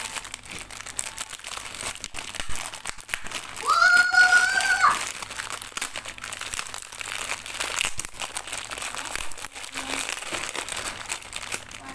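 Thin plastic packaging of a new audio cable crinkling and rustling as it is handled and worked open. About four seconds in, a loud steady tone lasting about a second sounds over the crinkling.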